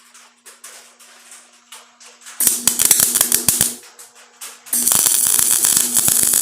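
Welding arc crackling on the rust-pitted sheet steel of a 1957 Chevy 210 as pit holes are filled against a copper backer spoon. There is a burst of about a second and a half with sharp crackles, a short pause, then a steadier crackle of nearly two seconds that stops near the end.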